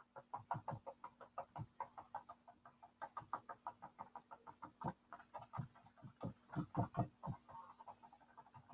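Paintbrush tip dabbing dots of paint onto a canvas: faint, quick, irregular taps, several a second.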